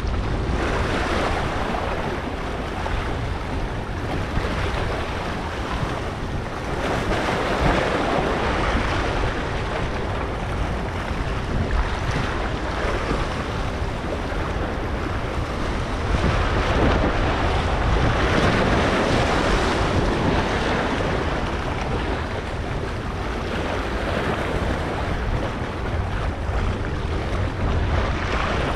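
Wind buffeting the microphone over harbour waves washing against a rock breakwater. The noise rises and falls in slow swells every several seconds.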